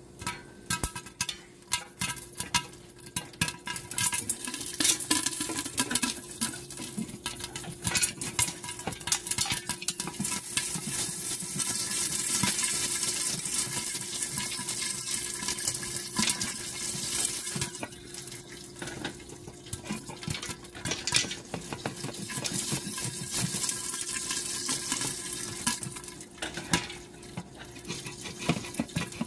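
Popcorn kernels popping in hot oil in a covered pot: a rapid, irregular crackle of pops over the hiss of the oil, busiest through the middle and thinning out near the end.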